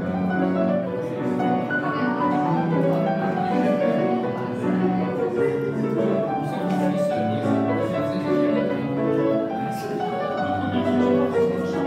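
Piano played live, a flowing melody over chords with the notes ringing into one another, and a faint murmur of voices underneath.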